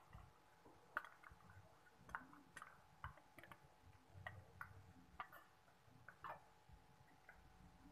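Hot oil frying sliced onions and ginger-garlic paste in a wok: faint, irregular pops and crackles, about two a second.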